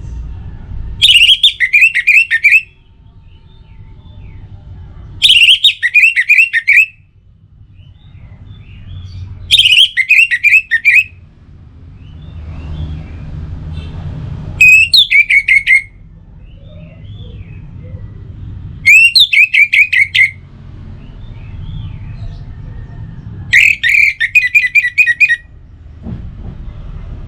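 Orange-headed thrush singing: six loud phrases, each a quick run of repeated whistled notes lasting about a second and a half, coming every four to five seconds over a faint low background rumble.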